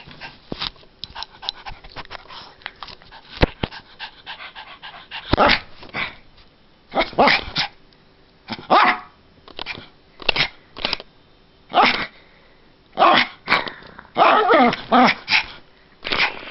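A puppy barking in short, irregular bursts, spaced a second or two apart, with a longer run of barks near the end.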